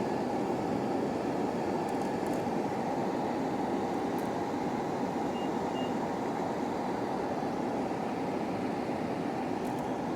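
Steady rushing background noise, like room ventilation or a fan, with no change in level and a couple of faint short ticks.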